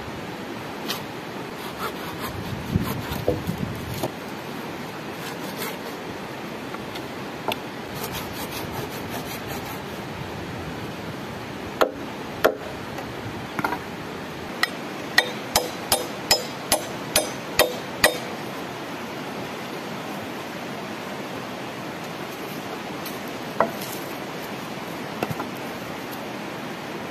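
Machete blade chopping and scraping peeled wooden poles over the steady rush of a stream. Scattered knocks and scraping come first, then a quick run of about ten sharp chops, roughly three a second, just past the middle.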